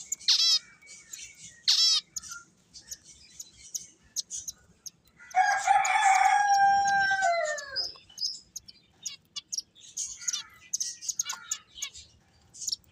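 Pet finches chirping with short, high calls and quick down-sweeping notes, while a rooster crows once about five seconds in: a single crow of about two and a half seconds that falls in pitch at the end and is the loudest sound.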